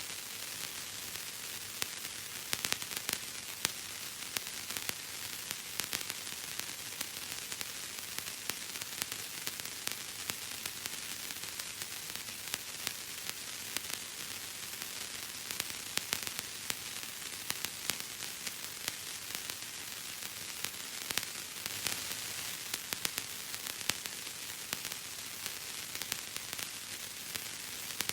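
Bubble wrap being popped: irregular sharp pops, several a second, over a steady hiss.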